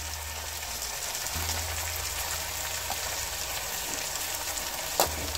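Chopped mixed vegetables (cauliflower, broccoli, carrot, potato) frying in oil and spices in a nonstick pan, a steady sizzle. A single sharp tap about five seconds in.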